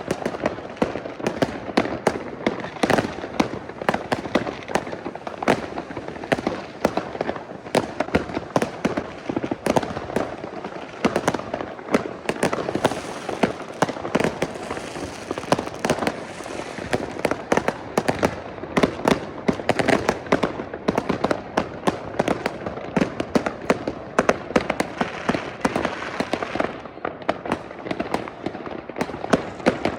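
Many consumer fireworks and firecrackers going off at once across a neighbourhood: a dense, unbroken barrage of bangs and crackles, several a second, overlapping into a constant rumble.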